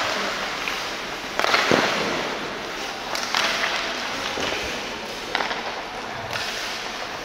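Ice hockey play on the ice: skate blades scraping and several sharp clacks of sticks and puck, the loudest about a second and a half in.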